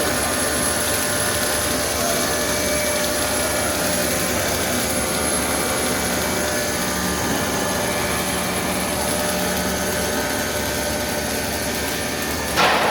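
Air bubble film extrusion line running in production: a steady mechanical drone and hiss with several steady whining tones, one of them high-pitched. Near the end a short, loud burst of noise cuts across it.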